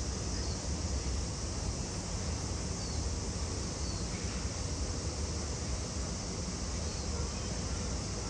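Steady outdoor background: a continuous high-pitched insect drone over a low rumble, with no distinct event standing out.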